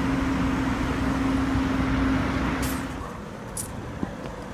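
Street traffic: a vehicle running with a steady hum over road noise, which cuts off about three seconds in. A quieter street background follows, with a few faint clicks.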